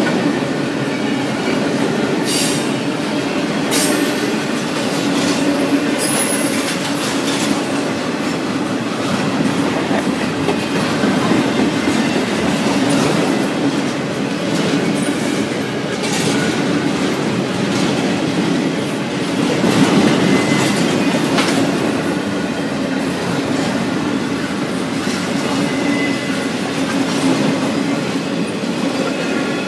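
Double-stack intermodal freight cars rolling past at close range: a steady rumble of steel wheels on rail, with irregular clicks as wheels cross rail joints and a faint thin wheel squeal.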